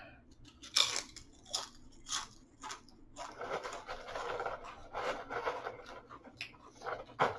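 Tortilla chips crunching, a few short sharp crunches at first. Then a hand rummages through the chips in a clear plastic tub, rustling for about three seconds.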